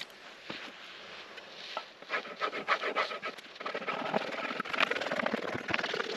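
Repeated rubbing and scraping strokes, sparse at first, then denser and louder from about two seconds in.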